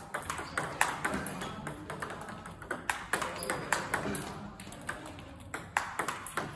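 Table tennis balls being hit and bouncing during a multiball forehand drill: a steady run of sharp clicks from paddle strikes and bounces on the table, a few each second.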